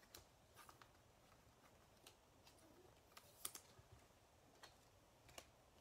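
Near silence with about ten faint, scattered light clicks and taps from trading cards being handled on the table.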